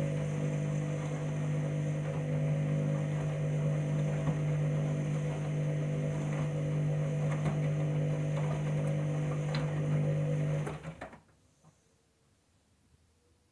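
Candy washing machine in its main wash with a full load: the drum motor runs with a steady low hum and a few light clicks from the tumbling load, then stops suddenly about eleven seconds in as the drum pauses between tumbles.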